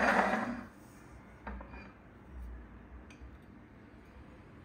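Hands handling a diecast model airliner and its display stand on a desk: a short scraping rustle at the start, then a few light clicks.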